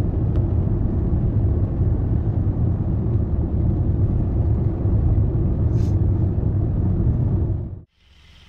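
A car driving on the road: a steady, loud, low rumble of road and engine noise that stops abruptly near the end.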